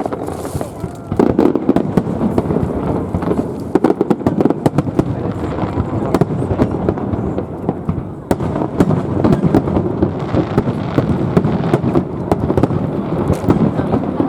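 Aerial fireworks display: shells bursting in quick succession, a dense run of booms and sharp cracks with no break.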